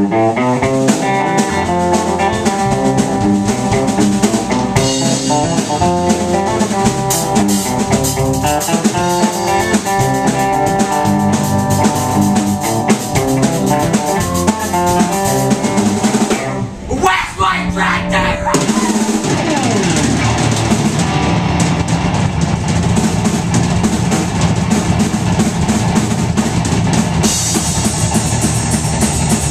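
Band jamming on amplified guitars and a drum kit. Just past halfway the playing breaks off briefly, then comes back in denser, with more cymbal toward the end.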